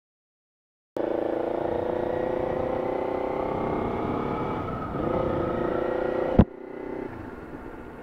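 Motorcycle engine running at low road speed, picked up by a helmet microphone wrapped in a latex glove under its foam windscreen; it cuts in abruptly about a second in after silence, its pitch dips and picks up again near the middle. A sharp knock comes about six and a half seconds in, after which the engine is heard much more quietly.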